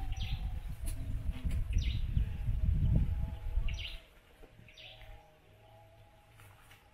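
Birds chirping in short, high calls now and then, over a low rumble that is loud for the first four seconds and then drops away.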